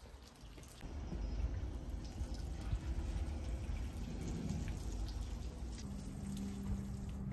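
Water sprinkling from a plastic watering can onto garden soil and seedlings, a continuous splashing trickle, over a low rumble. A steady low hum joins about six seconds in.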